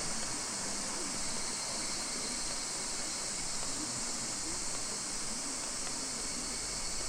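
Chorus of higurashi (evening cicadas, Tanna japonensis), many calling at once so the calls blend into a steady, high-pitched shrill.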